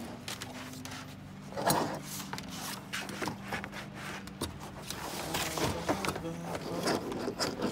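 Background music of held notes that change pitch every second or so, with scattered short clicks and scrapes throughout.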